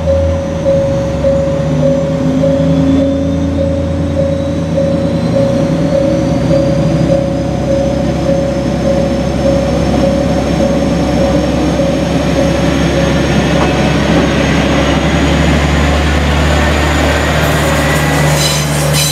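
JR Kyushu KiHa 40 diesel railcar pulling away and running past at close range, its diesel engine working harder and louder as it gathers speed. Its wheels click over the rail joints near the end. A level-crossing alarm rings in a steady repeating beat.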